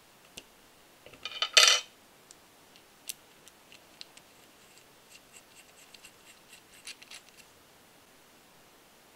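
Small machined metal parts of a model engine kit clinking: one bright metallic clatter with a ringing tail about a second and a half in, then a run of light ticks and clicks as small metal pieces are fitted together by hand.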